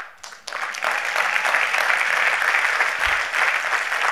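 Theatre audience applauding: a few scattered claps, then full applause building about half a second in and holding steady.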